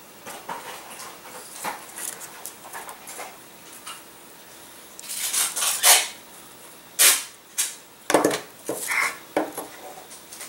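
Thin wooden kit parts being handled and fitted together on paper: light clicks, taps and paper rustling, with a hissing squirt from a squeeze bottle of glue about five seconds in, followed by several sharper knocks and scrapes.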